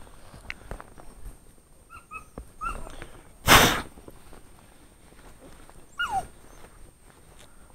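Hunting dogs giving short, high whines and yelps several times, one of them falling in pitch near the end. A loud brief rush of noise comes about halfway through.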